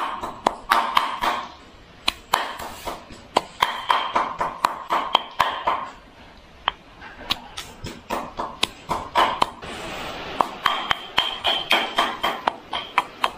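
Pestle pounding chillies and spices into a paste in a mortar: a run of sharp knocks with a ringing tone, about two or three a second, with a short pause around the middle.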